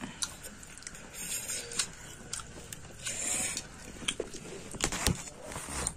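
Close-up eating and handling noises: chewing, scattered clicks and knocks, and two short rustling hisses, one about a second in and one around the middle, as chicken chow mein is eaten with forks close to the microphone.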